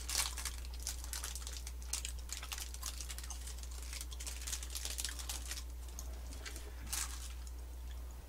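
Clear plastic wrapping on a rice cake crinkling as it is unwrapped by hand: a run of sharp crackles, loudest just after the start and again about seven seconds in, over a steady low hum.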